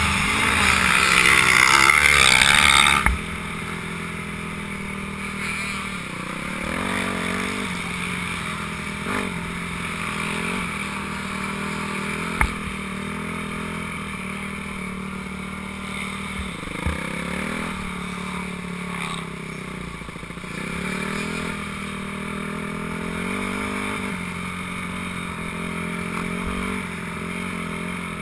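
Dirt bike engine at high revs under throttle, cut off sharply about three seconds in; it then runs at low revs with small throttle blips while rolling slowly, with two sharp knocks, one in the middle and one a few seconds later.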